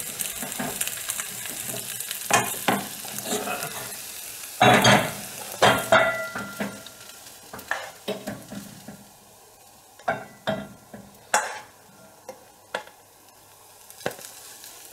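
Fried rice with soy sauce just added, sizzling in a hot non-stick wok while a spatula stirs and scrapes it. The sizzle fades about halfway through, leaving separate scrapes and taps of the spatula against the wok as the rice is scraped out.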